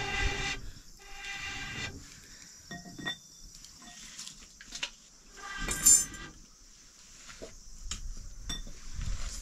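Metal cooking utensils and pots clinking and knocking, with one loud ringing clash about six seconds in. Near the start there are two steady pitched tones, each about a second long.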